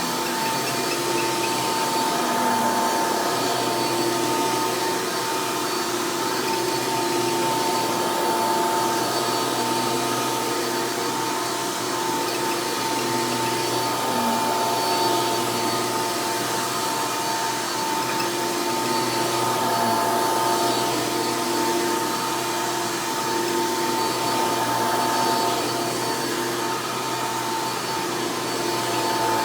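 Rebuilt Hoover Elite upright vacuum cleaner running steadily: a loud, even motor whine over the rush of air.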